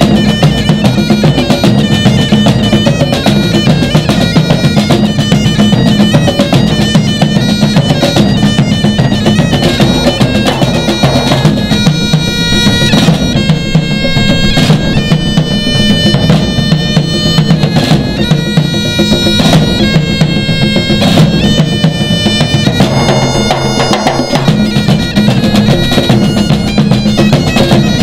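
Scottish Great Highland bagpipe playing a tune over its steady drones, with a drum band beating a driving rhythm on a rope-tensioned bass drum, congas and snare drum. Through the middle stretch the drums land heavier, spaced accents.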